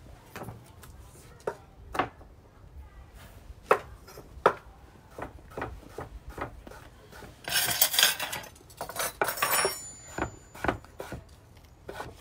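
Kitchen knife cutting pears on a wooden cutting board: irregular sharp knocks of the blade meeting the board, with a stretch of rustling noise about eight seconds in.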